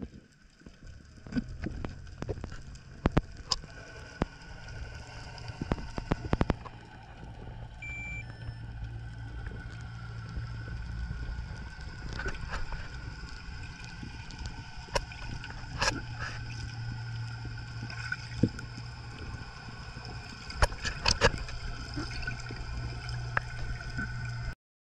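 Underwater sound picked up by the camera: a steady low hum with scattered sharp clicks and crackles, and a short high beep about eight seconds in. The sound cuts off suddenly just before the end.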